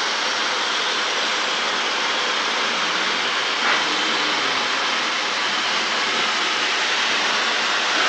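Dyson Supersonic hair dryer running steadily, blowing into a plastic bin liner and filling it: a constant rush of air.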